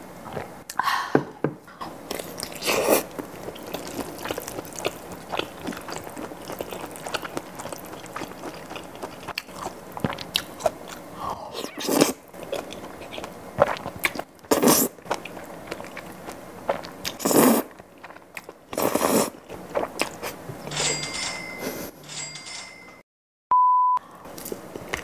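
Close-miked eating: wet chewing, slurping of cream pasta noodles and bites into a grilled kielbasa sausage. Near the end come a few short electronic tones, the last a steady beep.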